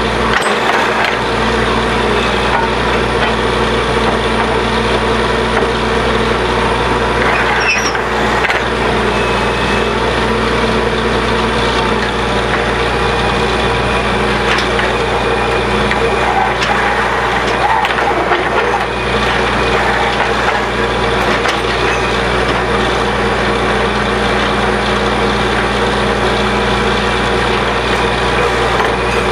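Borewell drilling rig running steadily: a loud, constant machine drone with a few brief knocks from the drilling.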